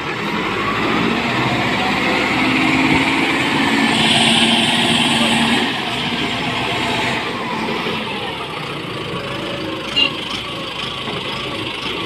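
Lovol backhoe loader's diesel engine running as the machine moves. It gets louder, with an added hiss, for a few seconds in the middle, and there is a single short click near the end.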